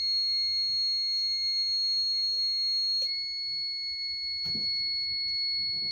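Heat press timer alarm sounding one steady, high-pitched electronic tone, signalling that the set pressing time is up.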